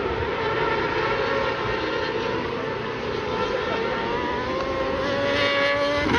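Racing superbike engines at high revs, with a rising pitch over the last two seconds as a bike accelerates and a sudden change in note near the end.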